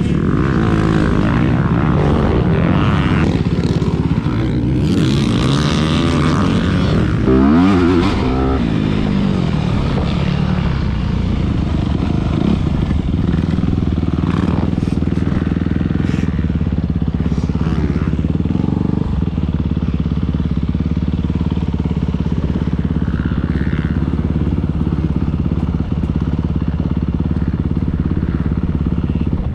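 Four-stroke dirt bike engine running, its pitch sweeping up and down about seven seconds in, then running steadily.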